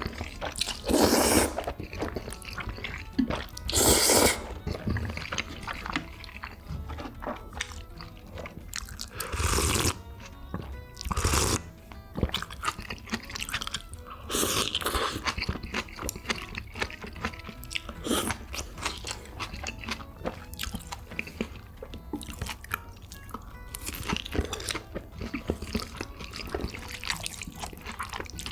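Close-miked eating of jajangmyeon: chewing and crunching, with about half a dozen louder bursts of eating noise, over background music.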